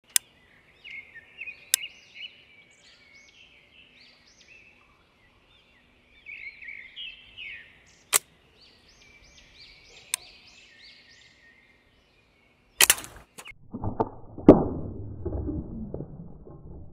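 Sharp single clicks of a homemade nail slingshot's magnet trigger releasing as it is shot, four times over the first ten seconds, with birds chirping in between. Near the end, a louder clatter and knocks take over.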